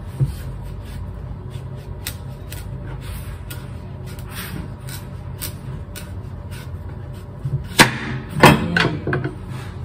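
Kitchen knife cutting through a hard butternut squash on a cutting board. Faint scattered clicks, then a few loud knocks about eight seconds in, all over a steady low hum.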